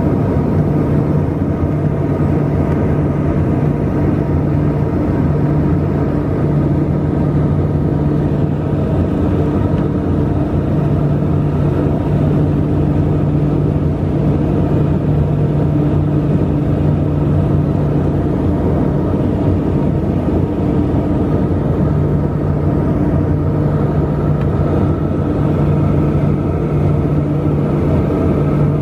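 Cabin noise of a LET L-410 Turbolet in cruise: its twin Walter M601E turboprops and propellers drone steadily, with a strong low hum.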